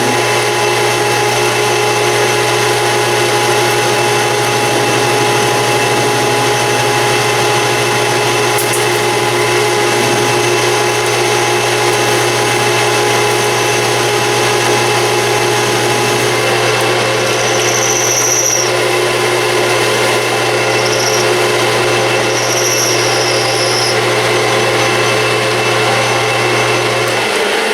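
Metal lathe running steadily while turning down a part's diameter, a constant machine hum with a few short high squeaks in the second half. The motor hum stops just before the end.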